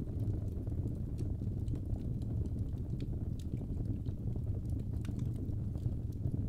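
Wood fire crackling in a fireplace: a steady low rumble of flames with irregular sharp pops and snaps.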